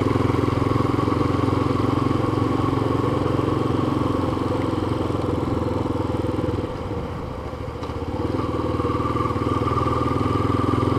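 Yamaha FZ25 motorcycle's single-cylinder engine running steadily under way, heard from on the bike. It eases off about seven seconds in, then picks up again.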